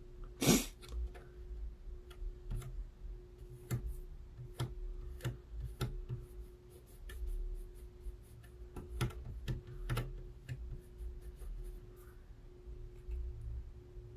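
Irregular sharp clicks and taps of small metal hand tools working on a console circuit board, the loudest about half a second in, over a steady low hum.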